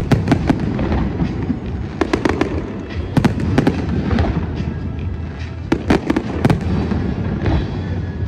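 Aerial fireworks display: shells bursting in clusters of sharp bangs and crackles every second or two, over a continuous low din.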